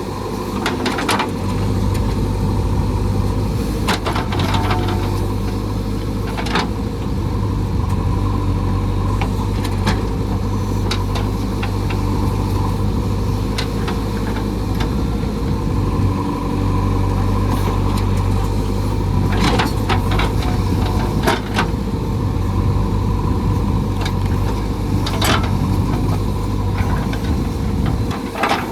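Diesel engine of a JCB 3DX backhoe loader running steadily under work, with several short sharp knocks or cracks scattered through it.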